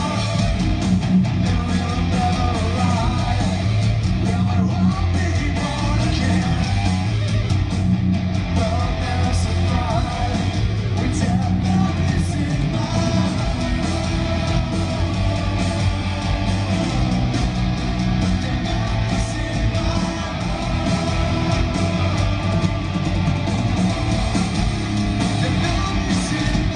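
Live heavy metal band playing a song, with distorted electric guitars out front over bass and drums.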